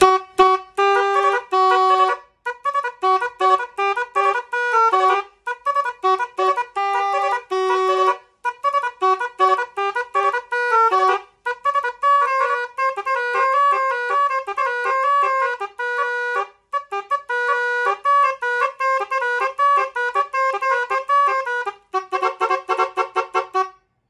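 Six-trumpet telolet basuri air horn playing a long melody of quick, changing notes. It is blown from a small compressor tank at low pressure. Near the end comes a fast run of rapidly repeated notes, then it cuts off.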